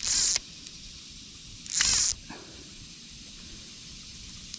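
Fly line being stripped through the rod guides while playing a hooked fish: two quick hissing pulls about a second and a half apart.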